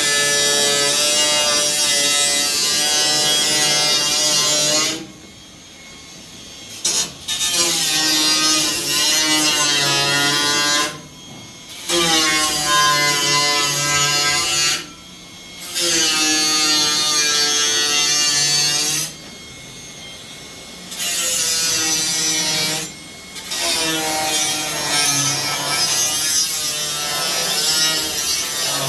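Angle grinder with an abrasive disc grinding or cutting steel, running in stretches of three to five seconds with short pauses between. Its high motor whine dips and recovers as the disc bites into the metal.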